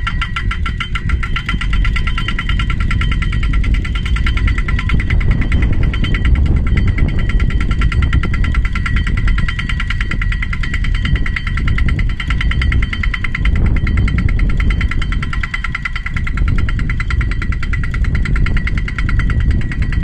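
Crawler-mounted hydraulic pile driver working steadily: its engine runs under load with a fast, even hammering rattle and a steady high whine.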